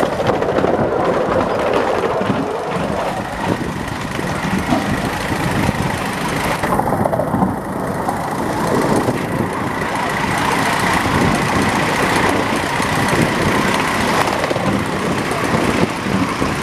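5-inch gauge live steam locomotive running with its train on the miniature track, a steady, rough noise of running gear and wheels on rail, with a faint high whistle-like tone throughout; for a few seconds midway the sound turns duller.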